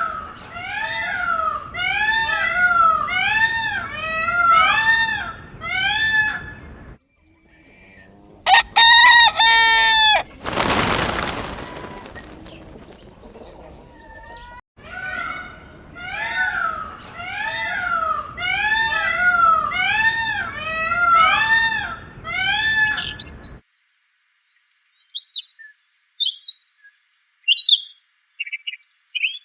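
Domestic fowl calling over and over in evenly spaced, arching notes, about two a second, broken by one loud, long, held call like a rooster's crow and a brief loud rush of noise. Near the end the calling cuts off abruptly, leaving only scattered small-bird chirps.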